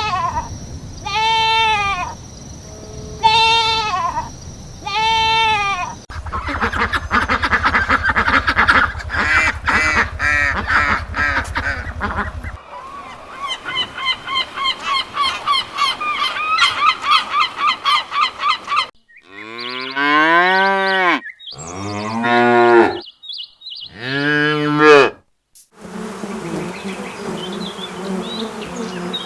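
Calls of several different farm animals in quick succession. It opens with four evenly spaced calls, one a second or so. A stretch of fast chattering calls follows. Near the end come three long calls of about a second and a half each.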